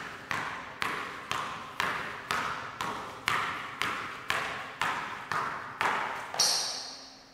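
Basketball dribbled steadily on a hardwood gym floor, about two bounces a second, each bounce echoing in the large hall. The last bounce, near the end, is sharper and brighter.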